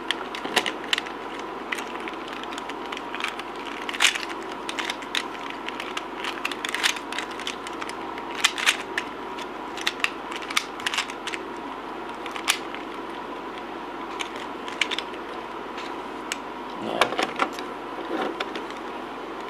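Meffert's Gearshift puzzle cube being twisted by hand during a solve: irregular sharp plastic clicks and clacks as its faces and gears turn.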